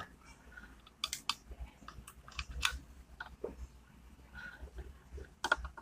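Scattered light clicks and taps, about six spread over a few seconds, from a small vape mod's casing and connector being handled and worked at with a soldering iron on a workbench.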